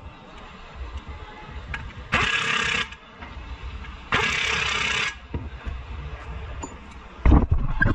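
Aerosol spray can hissing in two short bursts, each under a second long and about two seconds apart. Near the end a loud rattling clatter of rapid hits begins.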